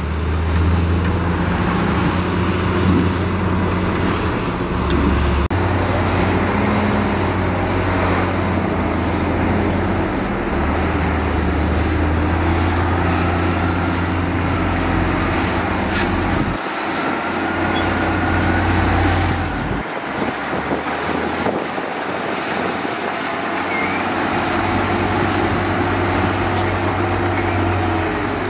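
Diesel engines of heavy earthmoving machinery running and working. The low engine note steps up and down several times.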